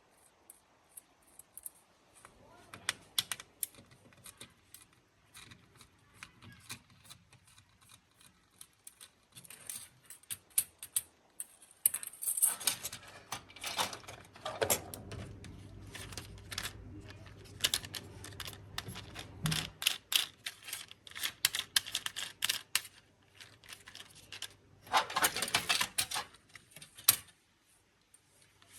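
Small plastic parts of a transparent toy racing car clicking, tapping and rattling as it is taken apart by hand: an uneven run of sharp clicks, busiest in the second half.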